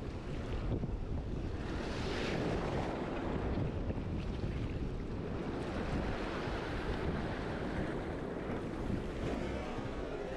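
Rough surf washing over a reef, swelling and easing in waves, with wind buffeting the microphone.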